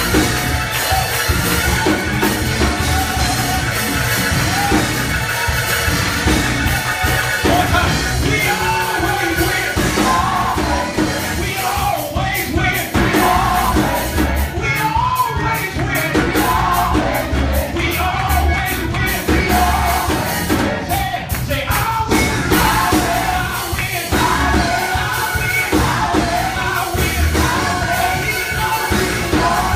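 Live church praise music: voices singing over a band with a steady bass-and-drum beat.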